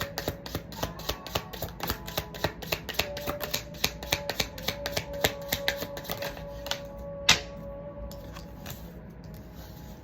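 Tarot cards being shuffled by hand: quick, even slapping clicks, about four or five a second, that stop about seven seconds in, followed by one sharp snap of a card. Soft background music with held notes plays underneath.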